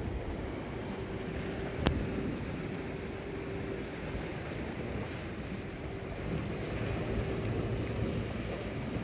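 Sea surf washing on a rocky shore with wind buffeting the microphone, a steady rushing noise with a faint low hum that comes and goes. A single sharp click sounds about two seconds in.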